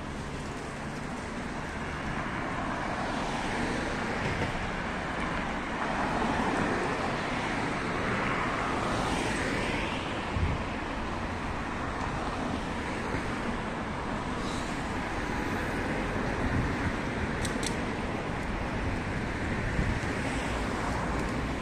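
Road traffic on a city street: a steady hum of car engines and tyres, swelling as a vehicle passes about halfway through, with a brief thump shortly after and a couple of short high chirps later on.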